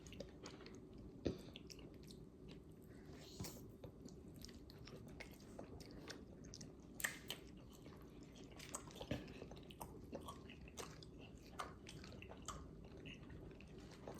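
A person chewing a mouthful of boneless chicken wing close to the microphone: faint, irregular wet mouth clicks and soft crunches, with a couple of sharper pops about a second in and around seven seconds in.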